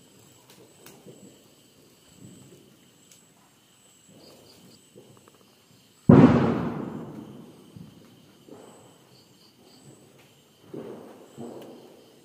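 A single loud firecracker bang about six seconds in, cutting in suddenly and fading away over a couple of seconds. Insects chirp steadily in the background.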